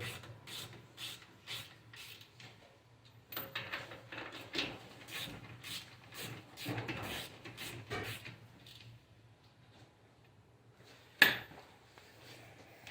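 Light clicks, taps and rubbing of tools and parts being handled, with one sharp knock about eleven seconds in.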